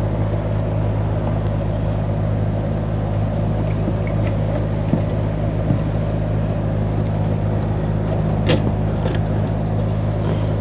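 A steady low hum throughout, with a few faint clicks and rustles from the plastic connectors, wiring and fuel lines of a fuel pump module as it is handled and set into the fuel tank opening, mostly about midway and near the end.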